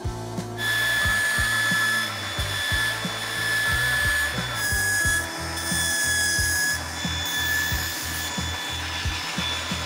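Belt grinder running with the edge of a steel plate held against its abrasive belt. The grinding hiss and a steady whine start about half a second in, then dip and swell a few times as the pressure on the plate changes.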